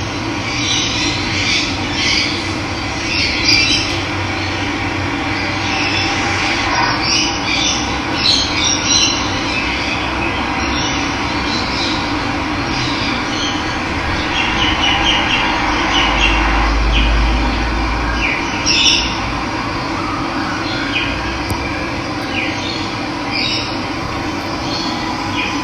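Running water with a steady rush, and many small birds chirping over it.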